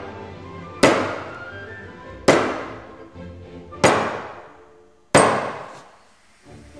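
Four sharp mallet blows on a wood chisel, about one and a half seconds apart, each fading away after the strike. Background music runs underneath.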